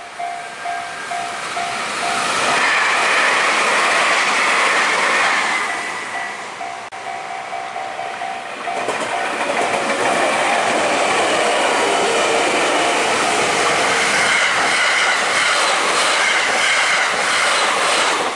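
Japanese level-crossing warning bell ringing in an even, repeating ding while electric trains pass the crossing. One train goes by loudly from about two seconds in, and from about nine seconds a red Meitetsu train runs past, its noise covering the bell until the end.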